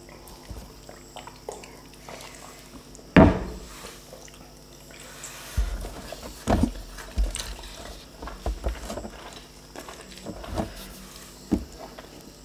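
Close-up eating sounds: wet chewing and mouth noises as soft lempeng flatbread with sambal is eaten, along with fingers tearing the flatbread. One sharp knock about three seconds in is the loudest sound, followed by scattered smaller clicks and wet ticks.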